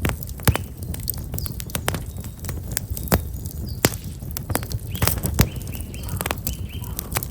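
Black locust firewood burning in a campfire, crackling with frequent sharp, irregular pops and snaps over a low rumble. Small birds chirp briefly a few times, mostly in the second half.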